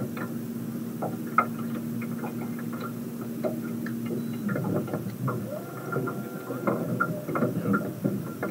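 A small motor hums steadily, then cuts off about four and a half seconds in, with light ticks and knocks throughout.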